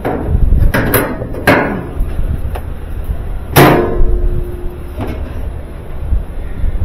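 Sharp clanks and knocks of metal parts as a washing machine suspension rod is worked loose and lifted out. Several come in the first second and a half; the loudest, a little past halfway, rings on with a steady tone for over a second.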